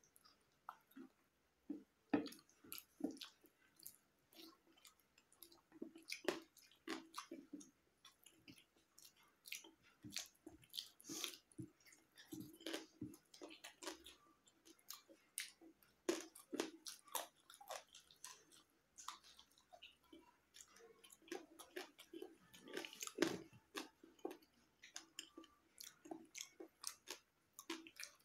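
Close-up chewing of a person eating boiled egg, rice and boiled spiny gourd by hand, an irregular run of many short mouth clicks and smacks.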